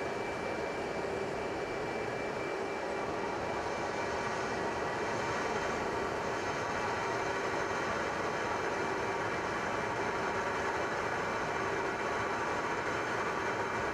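Steady aircraft noise in flight: an even rushing drone with a few faint steady tones running through it, unchanging throughout.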